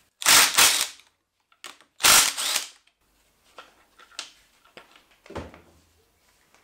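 Ratchet wrench working in two short loud runs about two seconds apart, followed by lighter clicks and knocks of tools on metal.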